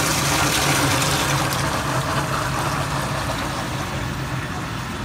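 Wire EDM machine's work tank filling with water: a steady rush of water over a steady low hum, a little louder in the first two seconds.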